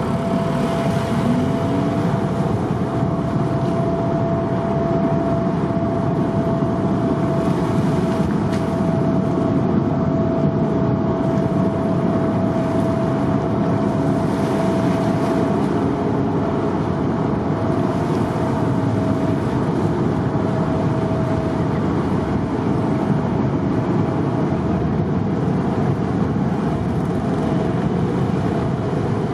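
Tokyo Bay car ferry's engines running, a steady rumble with a steady hum that fades out about two-thirds of the way through.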